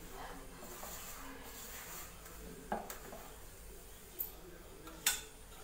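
Hand kneading chapati-style dough of wheat and maida flour in a steel plate: soft rubbing and squishing of the dough against the metal, with three short sharp clicks in the second half.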